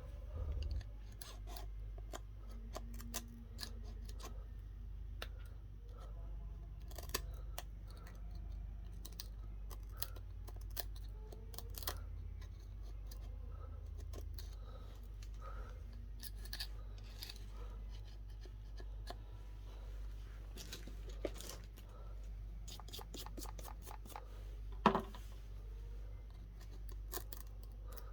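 Hand tools working on a phone: scattered small clicks, snips and scrapes over a steady low hum, with one sharper, louder click about 25 seconds in.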